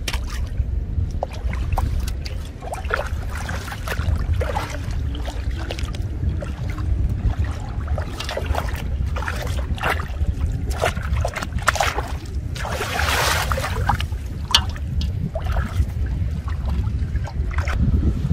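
Small splashes and drips of shallow water as hands and a fishing net are worked through it, with one longer, bigger splash about two-thirds of the way through. Wind buffets the microphone with a steady low rumble throughout.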